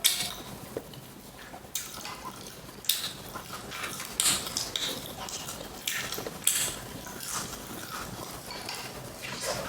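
A person eating fried chicken close to the microphone: chewing with a series of short crisp bites and wet mouth smacks, one every second or so.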